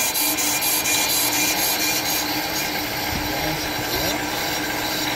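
Pro-Cut PFM 9.2 on-car brake lathe running, its cutting bits scraping across the spinning brake rotor face in a resurfacing cut. A rhythmic scrape pulses about twice a second, then fades out about two seconds in, leaving a steady grinding whir.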